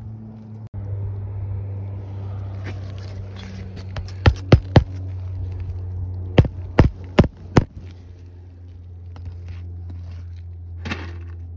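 Hammer driving roofing nails into asphalt shingles: three quick blows about four seconds in, then four more about two seconds later, and one more near the end, over a steady low hum.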